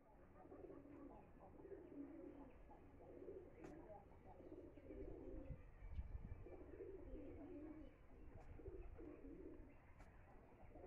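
Faint bird calls: short, low-pitched phrases repeating every second or so over a steady low rumble.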